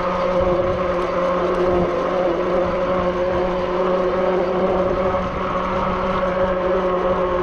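Zugo electric bike's motor whining at a steady pitch while riding, over a steady rushing noise.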